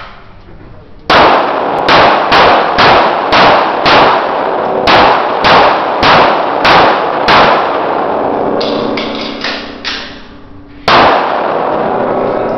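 Pistol shots in a steady string, about a dozen roughly half a second apart, echoing off the walls of an indoor range. A pause with a few softer knocks follows, then one more shot near the end.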